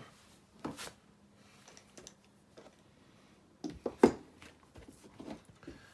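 A few scattered clicks and taps of small metal parts of a Dye Hyper 3 paintball regulator being handled during disassembly, with the sharpest cluster about four seconds in.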